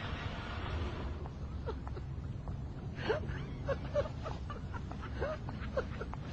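Short animal calls that curve in pitch, a few a second, over a low steady rumble; a hiss fades out about a second in.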